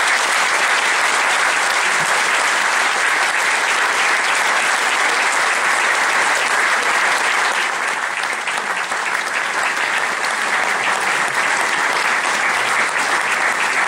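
Audience applauding: many people clapping in a steady, dense patter that eases only slightly partway through.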